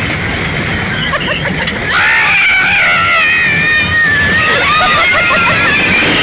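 Several riders screaming on a fairground ride: long, high, wavering screams that start about two seconds in and overlap, over the steady rumble of the moving ride.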